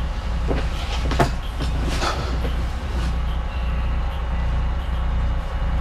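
Steady low rumble of a motor vehicle, with a few brief knocks in the first two seconds.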